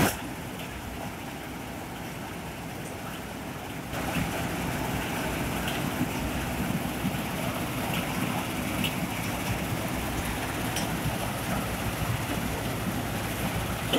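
Friends-840 combine harvester running at full speed, around 2300 rpm, on a test run. Its engine and machinery make a steady noise that gets louder about four seconds in.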